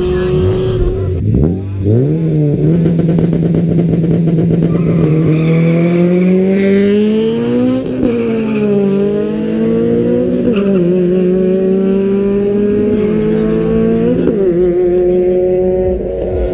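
A drag-racing car's engine accelerating hard down the strip. It rises in pitch through the gears and drops back at each shift, three times in the later part.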